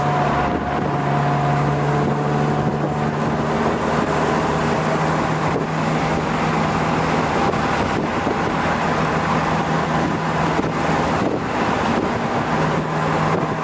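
1959 Mercedes-Benz 190SL's 1.9-litre four-cylinder engine running steadily as the car cruises at about 50 mph, with wind and road noise around it.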